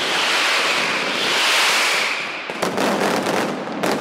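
Mascletà firecrackers going off in a dense barrage that merges into one continuous roar, then breaks into rapid separate sharp bangs about two and a half seconds in.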